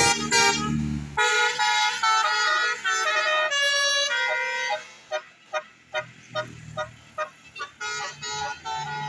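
Telolet horn, a multi-tone musical air horn on a road vehicle, playing a quick tune of changing notes, with engine rumble under it in the first second. About five seconds in it drops to a run of shorter, quieter toots, about three a second.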